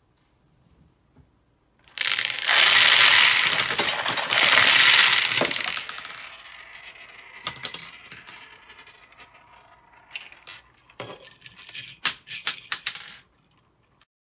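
A bottleful of small balls tipped out onto a tabletop: a loud clatter and rattle for about four seconds as they pour and bounce, then a fading patter of rolling balls and a run of sharp clicks as they knock together, stopping about thirteen seconds in.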